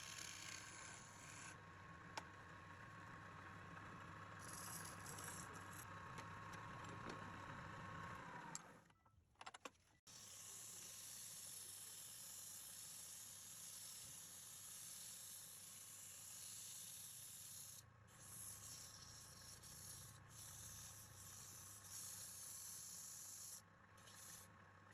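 Faint sound of a wood lathe running with a tool rubbing and scraping against the spinning wood. About eight seconds in, the motor's whine falls away and the sound almost stops for a second or so. Then the hissing rub starts again suddenly.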